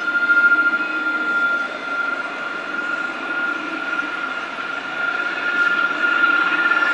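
Tram moving past along the platform and away, running with a steady high-pitched whine over a low rumble.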